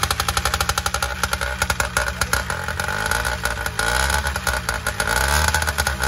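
Two-stroke motorized-bicycle engine just started on its pull start and running fast with rapid popping, revving up and down, with the choke still on.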